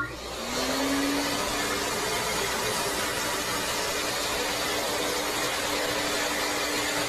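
A small electric motor running steadily with a loud whoosh of air and a faint hum that rises a little in pitch as it comes up to speed in the first second.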